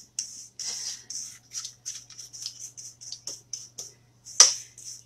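Quick scraping strokes of a utensil working in a mixing bowl, about three a second, with a louder knock about four seconds in, over a faint steady hum.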